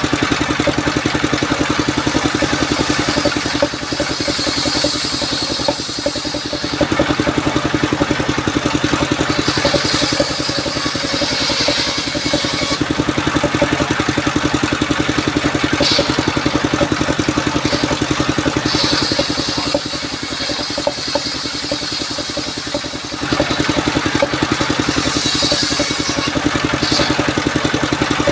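Engine of a portable circular sawmill running steadily, driving the circular blade as it rips sengon (albizia) wood; a higher, louder cutting noise comes and goes several times as each length is pushed through the blade.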